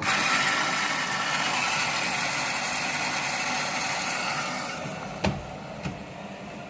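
AEG washing machine running: a loud, steady rushing that starts abruptly and eases off after about five seconds, with two sharp clicks near the end.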